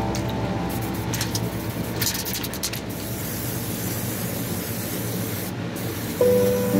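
Aerosol spray paint can hissing in several short bursts, then spraying more steadily. Background music comes back near the end.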